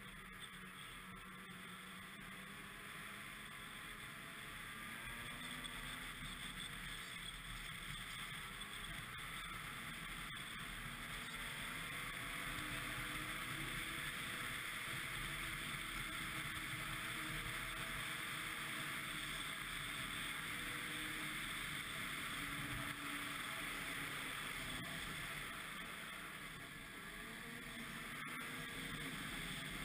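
Ski-Doo MXZ 600 X-RS snowmobile's two-stroke engine running under way, its pitch rising and falling with the throttle, getting louder about a third of the way in.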